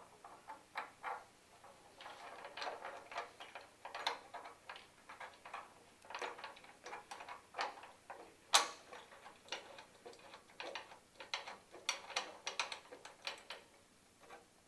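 Irregular small metal clicks and clinks of bolts and washers being fitted and tightened into a treadmill console, with one sharper, louder click a little past halfway.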